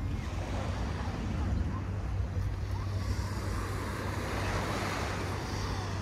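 Wind buffeting a phone's microphone with a steady low rumble, over the wash of distant surf and faint voices of people on the beach.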